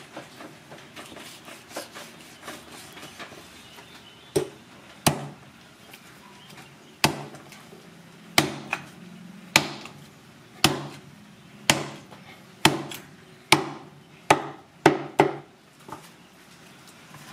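A heavy knife chopping through slabs of skin-on wild boar meat onto a wooden chopping board. A few seconds of quieter slicing are followed by a dozen or so sharp chops that come faster toward the end.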